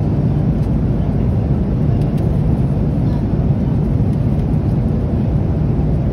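Steady in-flight cabin noise of an Airbus A330-200 airliner: an even, low rumble of engine and airflow noise heard from a passenger seat.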